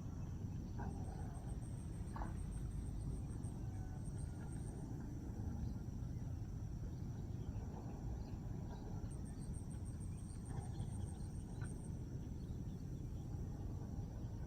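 An insect, cricket-like, trilling in rapid high-pitched pulses in two bouts of a few seconds each, over a steady low background rumble.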